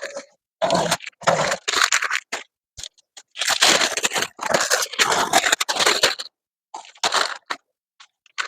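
Masking tape and masking paper being peeled off a freshly painted truck body in several pulls with short pauses, tearing and crinkling, while the single-stage paint is still tacky.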